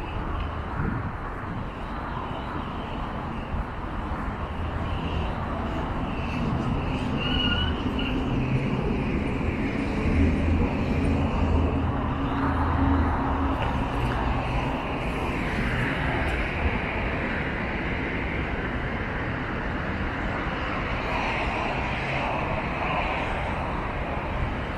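Road traffic: car engines and tyres running along a city street in a steady wash of noise, with a heavier engine hum swelling past in the middle.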